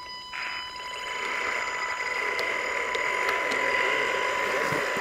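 Electric motors and gearboxes of RC scale off-road trucks running under load with a steady whine, tyres churning through deep mud as one truck tows the other out. The sound starts about a third of a second in and grows louder.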